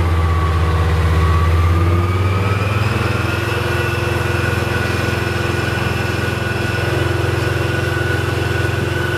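Type 74 tank's air-cooled two-stroke diesel engine running during a posture-control demonstration, as the hydropneumatic suspension tilts the hull. A high whine over the engine dips and then rises in pitch in the first three seconds, and the engine note changes around then before holding steady.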